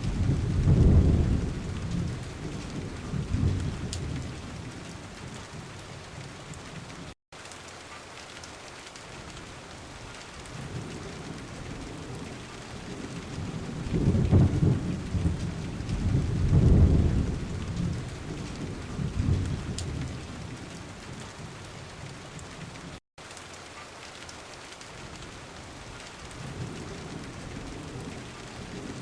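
Steady monsoon rain with rolling thunder rumbling, strongest in the first few seconds and again about halfway through, building once more near the end. The sound drops out for an instant twice.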